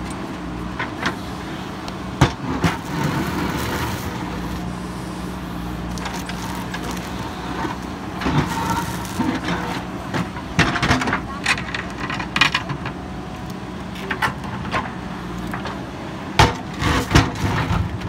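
JCB 3DX backhoe loader's diesel engine running steadily under hydraulic load, with scattered knocks and scrapes as the backhoe bucket works against a concrete pipe and the soil around it; the knocks bunch together about two seconds in, through the middle, and near the end.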